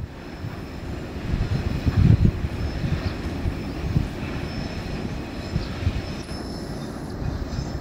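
Coal freight train of open wagons rolling past: a steady low rumble of wheels on rail with a few louder swells, and a faint thin high squeal from the wheels on the curve.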